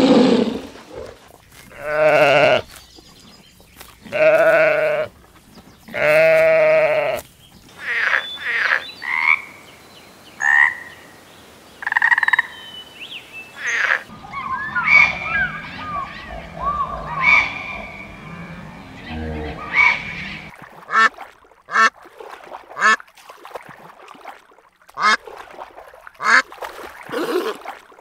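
A string of different animals' calls, one after another: a tiger's roar ending at the very start, three long wavering calls a couple of seconds apart, then a run of short high calls, and from about halfway frogs calling in chirps and quick sharp clicks.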